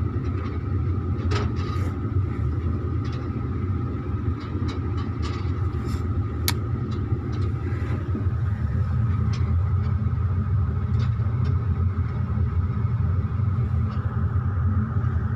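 Excavator's diesel engine running steadily with a constant high whine over its low hum and a few light clicks, growing slightly louder about halfway through.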